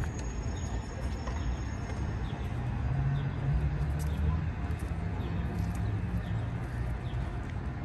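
Outdoor city street ambience: a steady background hum with a low rumble that swells in the middle, and faint scattered clicks.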